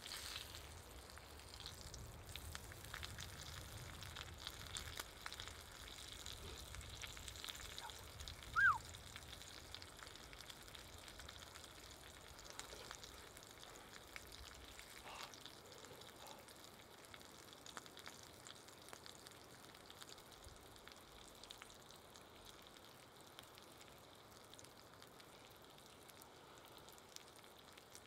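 Pork frying in a small cast iron pan by a campfire: a steady sizzle with fine crackles that slowly fades. One short falling whistle cuts in about nine seconds in.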